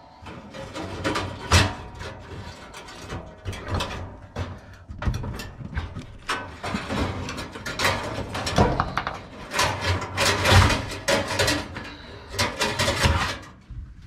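Whirlpool dryer's broken coil heating element being worked out of its sheet-metal heater housing: irregular metallic rattling, clinking and scraping of the wire coils and bracket against the sheet metal.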